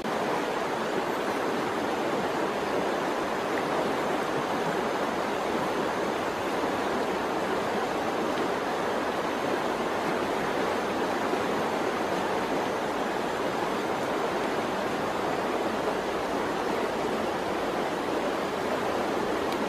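Steady, even rushing noise, unchanging throughout, which starts abruptly at the very beginning.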